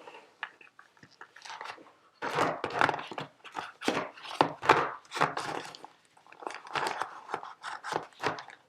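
Paper and plastic packaging being handled: a run of irregular crinkling, crackling rustles that begins about two seconds in and goes on almost to the end.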